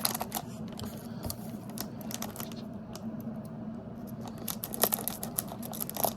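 One Piece trading cards and their foil booster-pack wrappers being handled: a run of light clicks, flicks and crinkles, with a lull about three seconds in, over a low steady hum.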